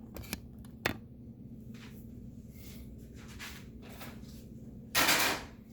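Plastic housing parts of a coffee maker being handled during reassembly: a couple of light clicks early, scattered faint rustles, then a louder scraping rustle about five seconds in.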